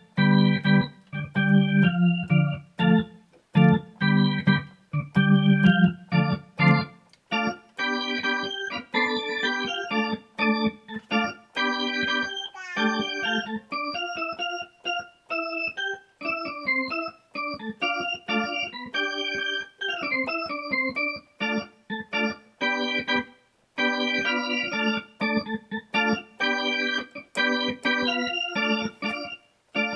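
Roland AX-Edge keytar played with an organ-like sound, in short chords with brief gaps between them. Low bass notes sound under the chords for about the first seven seconds, then higher chords and quick runs follow.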